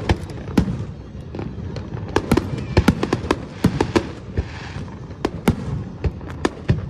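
Fireworks exploding in the sky in a rapid, irregular string of bangs, with a low rumble of distant bursts between them and a brief crackling hiss about four seconds in.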